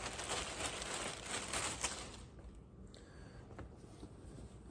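Clear plastic bag crinkling and rustling as a folded t-shirt is pulled out of it, busiest for the first two seconds, then only a few faint rustles.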